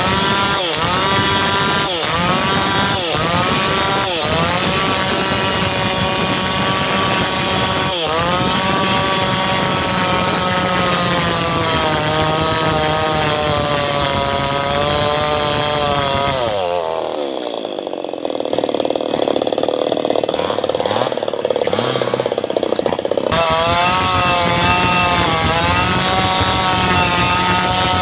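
Homemade engine-driven chainsaw (srekel) running hard while cutting teak, its engine note dipping and picking up again several times. About two-thirds of the way through the revs fall away sharply for several seconds, then climb back to full speed.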